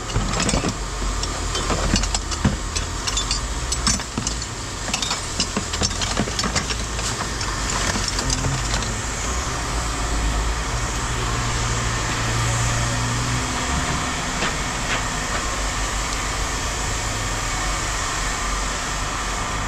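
A steady engine or machine running, with a flurry of sharp metallic clanks and knocks over the first few seconds as pieces of scrap metal are handled and tossed, and a few more knocks later.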